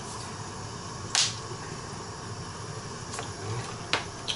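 A few short clicks and taps as a glass jar and a plastic oil bottle are handled and opened over a hot kazan. The sharpest comes about a second in, the rest near the end, over a low steady hum.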